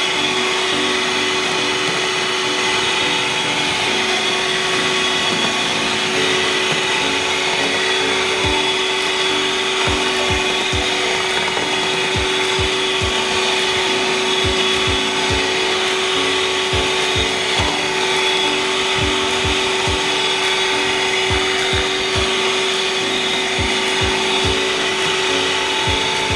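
Electric kitchen appliance motor running steadily while blending or whipping a creamy avocado mixture, with repeated low thumps from about eight seconds in.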